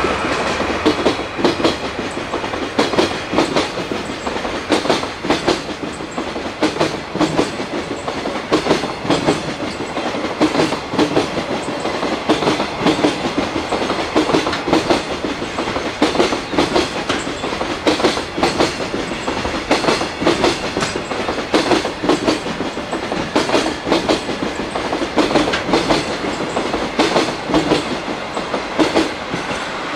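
Long container freight train passing close by, its wagon wheels clicking over the rail joints in a steady, rapid clickety-clack over a continuous rumble of wheels on rail.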